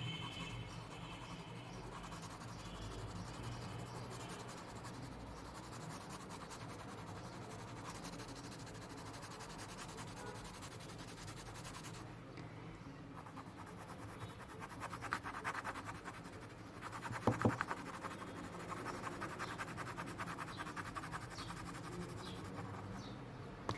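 Faint scratching of a drawing pencil on paper as a shadow is shaded in beneath a drawn apple, with a few firmer strokes a little past halfway.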